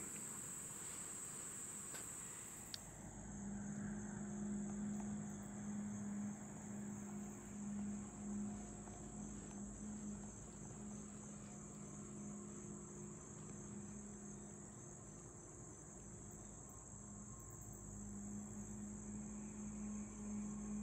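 Steady, high-pitched chorus of insects. About three seconds in, a low steady hum joins it and wavers in loudness.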